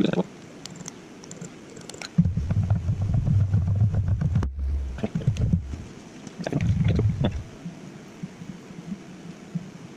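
Machine-shop work at a milling machine: bursts of low rumbling with scattered clicks and clatter. The longest rumble runs from about two seconds in to nearly six, and a shorter one comes about a second later.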